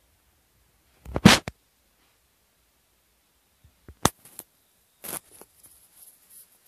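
Handling noise from a camera being moved about close to the microphone: a loud rustling bump about a second in, a sharp click about four seconds in, another short rustle about five seconds in, then a few small ticks.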